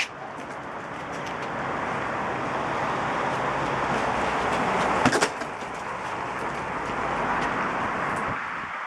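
A broad rushing noise, like a passing vehicle, that swells slowly over several seconds and fades near the end. About five seconds in there is one sharp thud, a kick landing on a hanging teardrop punch bag.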